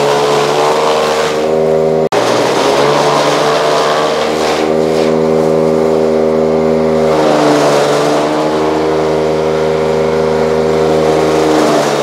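A machine's motor running steadily under load, its pitch sagging briefly and recovering about seven seconds in, with a sudden break about two seconds in.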